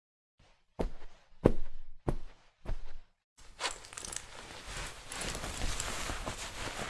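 Four heavy thuds, evenly spaced about two-thirds of a second apart. About three and a half seconds in, a steady rushing noise full of small crackles begins and carries on.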